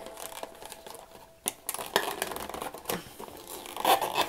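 Paper and cardboard rustling and crinkling as hands handle a rolled paper certificate inside a cardboard doll box, with irregular sharp crackles, the loudest about two seconds in and again near the end.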